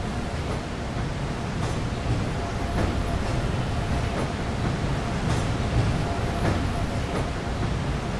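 Peak Tram funicular car running on its track: a steady low rumble with a faint steady whine and light clicks about once a second.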